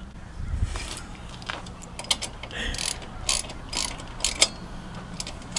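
Ratchet wrench clicking in short, irregular strokes, with scattered metallic clicks, as hand tools work on a truck's wheel hub assembly.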